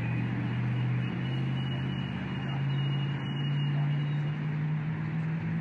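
A vehicle engine running as a steady low hum that climbs slowly in pitch, over a steady background hiss.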